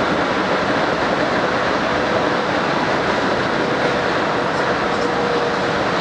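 Steady running noise heard inside a moving electric commuter train carriage: wheels on the rails and the train in motion, with a faint steady whine that comes and goes.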